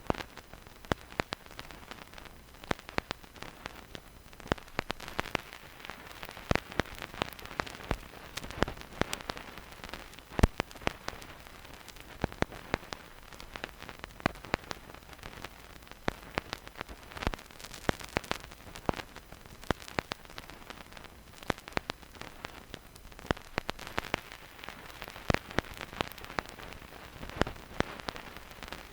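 Vinyl record surface noise with no music: a steady soft hiss under irregular clicks and pops from the stylus riding the groove, one sharper pop about ten seconds in.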